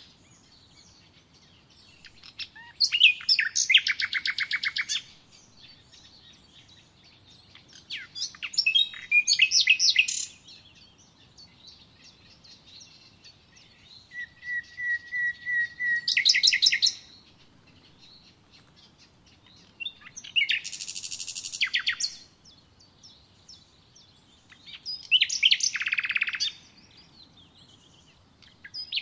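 A songbird singing: five short phrases of fast, high trills and notes, each two to three seconds long, with pauses of a few seconds between them.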